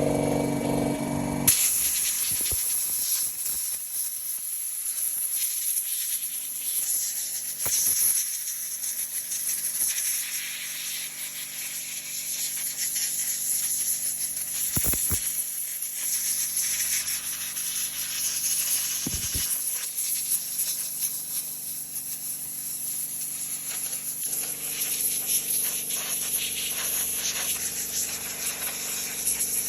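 Compressed air from a 1 hp Daewoo air compressor hissing out of a nozzle, rising and falling in strength as it is blown over a plastic brick model, starting about a second and a half in. A few short clicks now and then.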